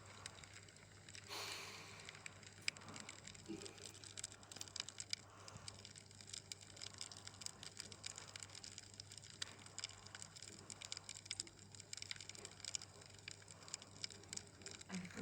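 Wood fire in a fireplace crackling quietly, with scattered small pops and snaps.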